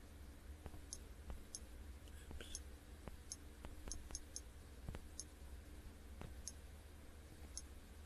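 Quiet clicks, about a dozen at irregular intervals, from tapping through folders on an Android touchscreen, over a faint low hum.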